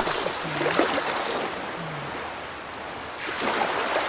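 Ocean waves washing in: the surf eases off past the middle, and a fresh wave builds a little after three seconds.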